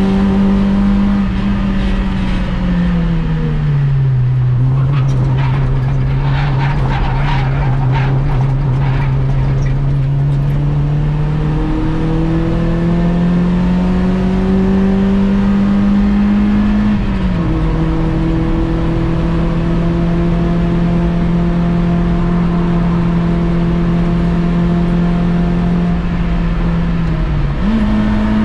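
Volkswagen Polo 6N1 track car's engine heard inside its stripped cabin, driven hard on track. The revs sink a few seconds in and hold low through a spell of rattling. From about twelve seconds they climb steadily, drop sharply at a gear change about seventeen seconds in, then run steady until a quick jump in revs near the end.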